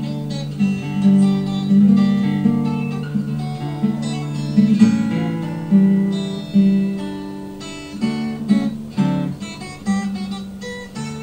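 Steel-string acoustic guitar playing an instrumental passage, a run of picked notes over ringing chords.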